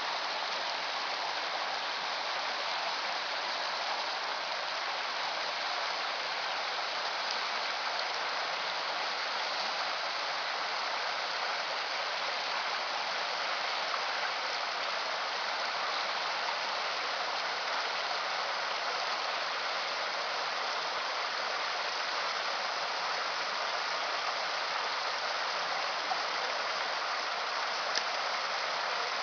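A stream flowing, a steady even rush of water.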